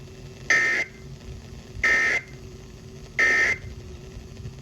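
Emergency Alert System end-of-message signal: three short, identical buzzy bursts of SAME digital data tones, each about a third of a second long and a little over a second apart, marking the end of the alert message.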